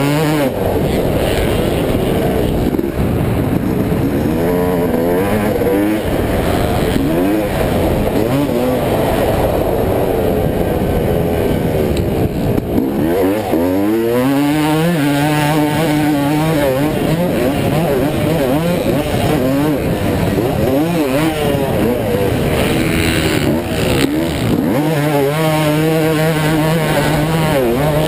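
Motocross dirt bike engine heard on board, revving hard and falling back as it races the track, its pitch rising again and again as the throttle opens and it runs up through the gears.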